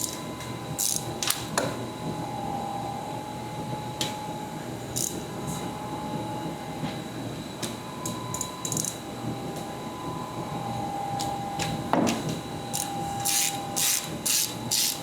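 Hand tools working on a stripped metal plug: ratchet clicks and metal scraping, turning into a run of short rhythmic strokes, about two to three a second, near the end. The plug spins freely in its bore and will not back out.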